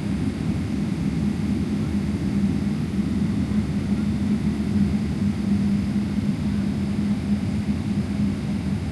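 Steady cabin noise of a Boeing 777-300ER with its GE90 jet engines running: an even low drone with a constant hum and no sudden events.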